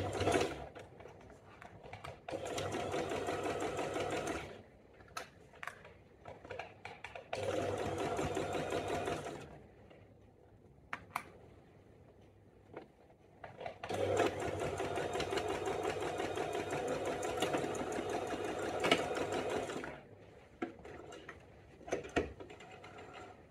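Electric sewing machine stitching a zipper seam with a zipper foot, running in three bursts with pauses and small clicks between. The last run is the longest, about six seconds.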